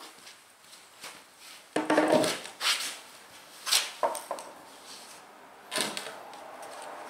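Pressure-treated lumber boards knocking against each other and the concrete floor as they are set in place by hand: a handful of separate wooden clunks, the loudest about two seconds in.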